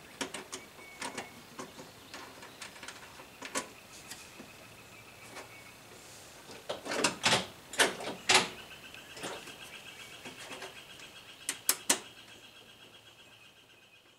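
Small metal parts and hand tools clicking and knocking as a shifter-boot trim plate is fitted and fastened on a race car's shift tunnel, with a run of louder knocks about halfway through and two more sharp ones near the end. A steady high thin tone sounds through the second half, and everything fades out at the end.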